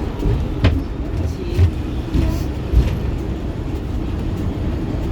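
Hong Kong double-decker tram running, heard from on board: a steady low rumble with a few sharp knocks and rattles about a second apart.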